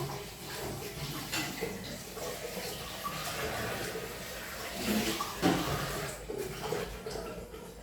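Herbal liquid being poured into a glass, a steady splashing pour with a few brief knocks along the way.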